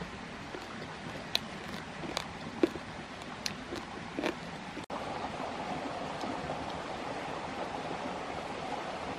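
Close-up eating sounds: a handful of sharp mouth smacks while chewing, in the first half. After an abrupt cut about five seconds in, a steady rushing background noise.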